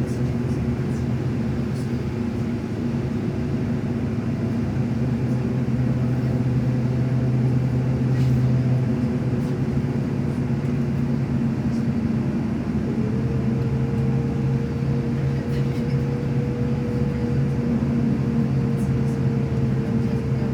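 Steady low drone of a running vehicle. About two-thirds of the way through, a higher tone slides up and then holds.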